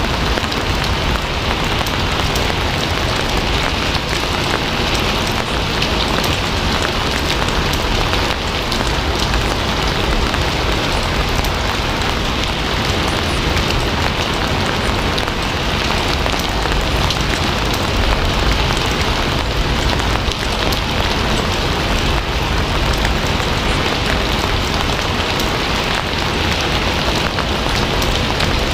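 Steady rain falling, an even dense hiss that does not let up.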